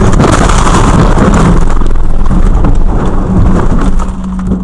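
Vehicle collision heard from inside the crashing vehicle: loud, continuous crunching and clattering of metal and debris that dies down about four seconds in, leaving a steady hum.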